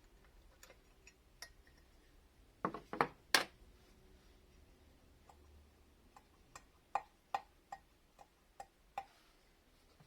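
Light metal clicks and knocks from handling a valve and the lapping tool on a cylinder head. A cluster of louder knocks comes about two and a half seconds in, then a run of about eight sharp clicks, roughly two a second, in the second half.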